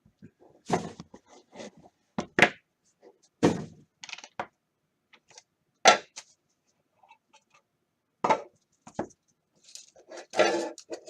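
Trading cards and card boxes being handled on a table: about eight separate knocks, taps and rustles at irregular intervals, with a longer rustling stretch near the end.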